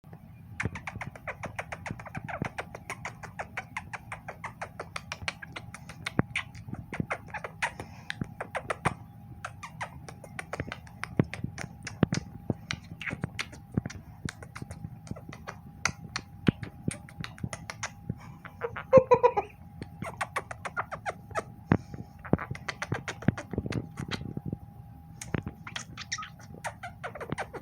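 A Quaker parrot play-fighting at close range, with a rapid, irregular stream of beak clicks and kissing smacks and one short squawk about 19 seconds in.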